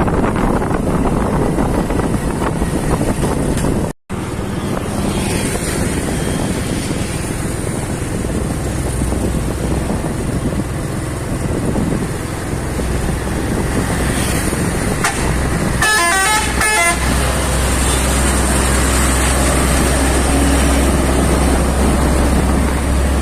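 Heavy truck engine running steadily under load. A horn sounds briefly in a quick series of short notes about two-thirds of the way in.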